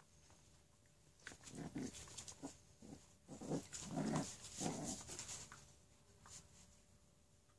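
Dogs play-fighting: a run of short growls and yaps starting about a second in, loudest in the middle and trailing off, with scuffling on the rug.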